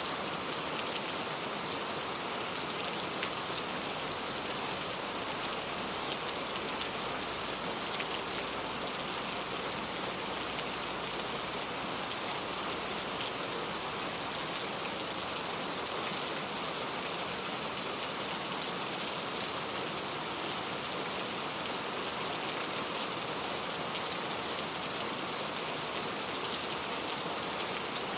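Steady rain falling and pattering on a surface, an even hiss with scattered individual drop ticks and no change in strength.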